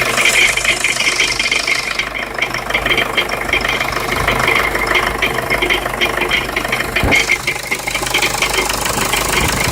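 Jeep Liberty CRD's 2.8-litre four-cylinder turbodiesel running steadily with a fast, even clatter. This is the rattle/grind noise whose cause the owner is trying to find.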